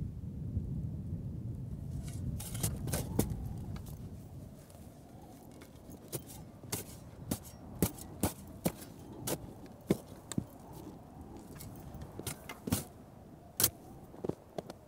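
A spade biting into dry, stony desert soil and throwing dirt, heard as a run of short, sharp scraping crunches, about one or two a second. Under them is a low rumble that fades out in the first few seconds.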